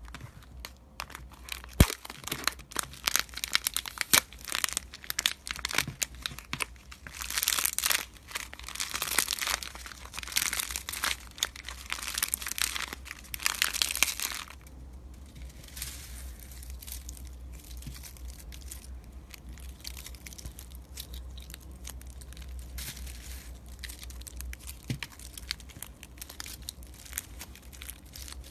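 Plastic bag of sequins being crinkled and handled, with loud crinkling bursts through the first half, then quieter steady crackling.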